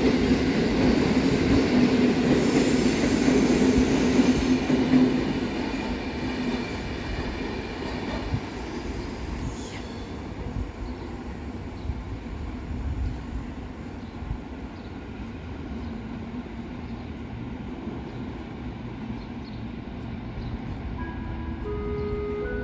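PKP Intercity passenger train rolling out along the station track. Its rumble, with a steady hum, is loud for the first few seconds, then fades over the next few as the train pulls away, leaving a low background rumble.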